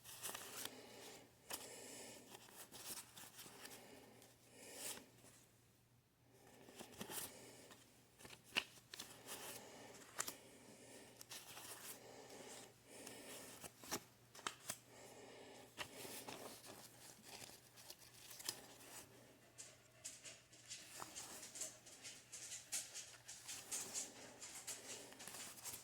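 Faint, irregular rustling and flicking of paper banknotes as a stack of one-dollar bills is leafed through one by one.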